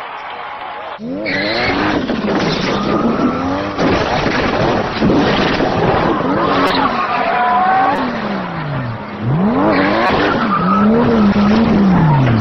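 Tuned sports car engine revving up and down over and over, with tyres squealing, as in drifting. It comes in suddenly about a second in.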